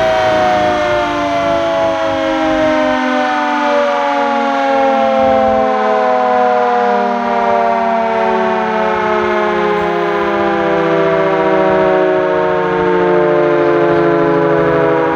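Electric motor-driven industrial air-raid siren (AimGlobals AGS 5 DCB, 2 HP motor) wailing loudly as one steady, rich tone that slowly and continuously falls in pitch: the rotor is winding down.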